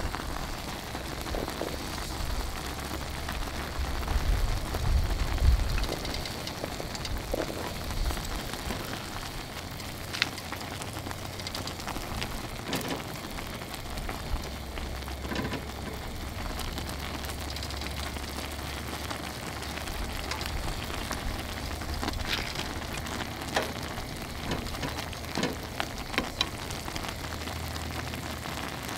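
Spicy seafood ramen broth boiling in an open pot on a portable butane stove: a steady bubbling hiss with many small pops and clicks. A low rumble comes and goes underneath.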